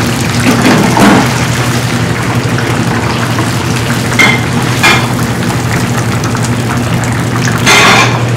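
Battered tempura sizzling steadily in the hot oil of a commercial deep fryer, over a steady low hum. A metal wire-mesh skimmer clinks and scrapes a few times, about a second in, twice around four to five seconds, and loudest near the end as the fried pieces are tipped onto a plate.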